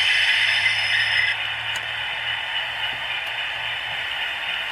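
DCC sound decoder with a Howes Class 60 sound file, playing a diesel engine's low idle through a model locomotive's small speaker, with a louder burst of hiss in the first second or so.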